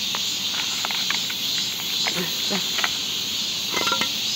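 Steady chorus of insects, a continuous high hiss, with scattered small clicks and a brief high call near the end.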